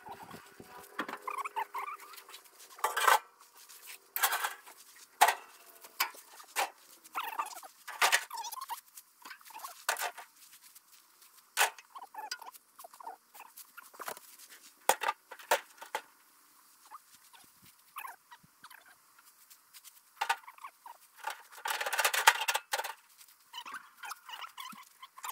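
Scrap sheet-metal panels being handled and stacked onto a tractor's front loader bucket: irregular clanks and rattles of thin metal, with a denser stretch of clattering a little after the two-thirds mark.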